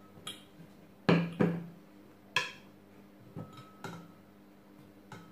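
Glass carafe clinking and ringing as lemon slices are dropped into it from a small ceramic bowl. Two loud clinks about a second in and a third a second later, then several softer ones.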